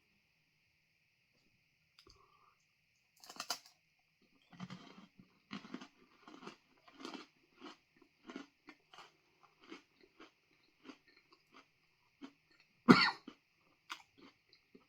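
Crunchy chewing of a freeze-dried ice cream sandwich bar, about two crunches a second. There is a cough before the chewing starts and a louder cough near the end, brought on by the hot pepper dust from the bar.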